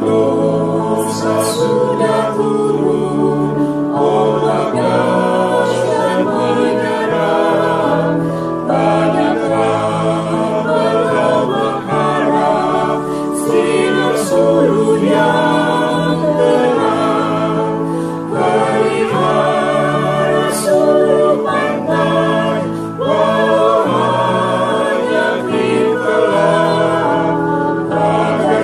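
A small mixed choir of women's and men's voices sings a hymn in harmony, the separately recorded voices mixed together as a virtual choir.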